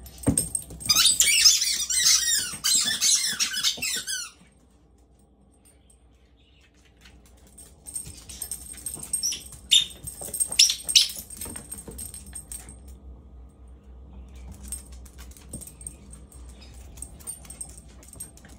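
A puppy chewing a squeaky toy, a rapid run of high squeaks lasting about three seconds near the start. Later come scattered light clicks and taps.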